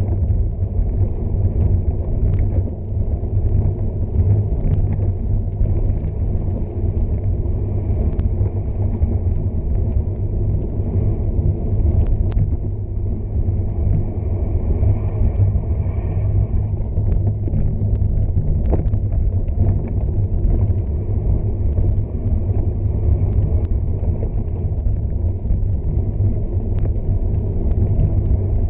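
Steady wind rumble on the microphone of a gravel bike descending a dirt road at speed, mixed with the noise of wide gravel tyres rolling over the dirt. A few small clicks are heard now and then.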